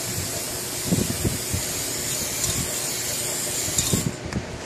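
Aerosol spray-paint can hissing steadily as it sprays fast-dry paint onto a car battery case, cutting off about four seconds in. A few dull knocks come around one second in and just before the spray stops.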